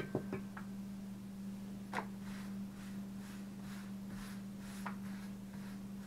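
Hands pressing and smoothing rolled-out pizza dough on a floured pastry mat: soft, even rubbing strokes, a few a second, after a knock about two seconds in as the wooden rolling pin is set down. A steady low hum runs underneath.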